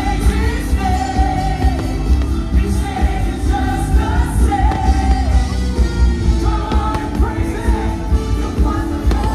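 Loud music with singing over a strong, steady bass.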